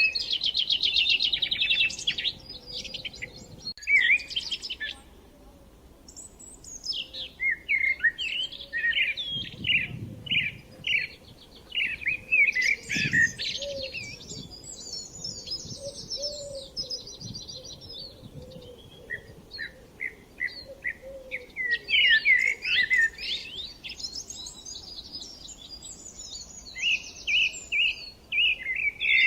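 Several songbirds singing in overlapping bursts of quick chirps, trills and repeated notes, with short lulls between phrases.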